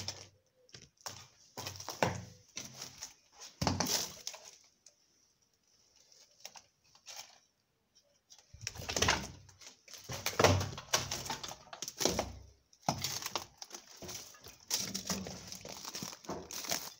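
Footsteps crunching and rustling through dry leaf litter, twigs and brush, in irregular bursts with a quieter lull of a few seconds in the middle.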